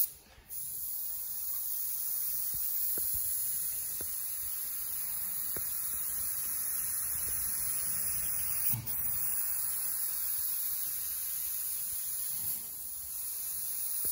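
Airbrush spraying: a steady high hiss of air over a low hum, cutting out briefly just after the start and pausing for a moment about nine seconds in.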